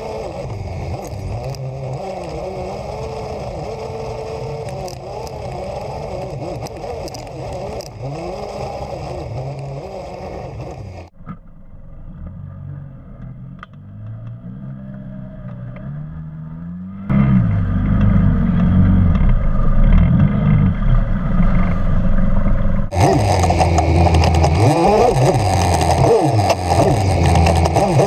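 Polaris RZR 800 four-seat side-by-side's twin-cylinder engine running while driving off-road, its pitch rising and falling as the throttle changes, heard from inside the open cab. The sound drops abruptly to a quieter, duller level about eleven seconds in and jumps back louder around seventeen seconds.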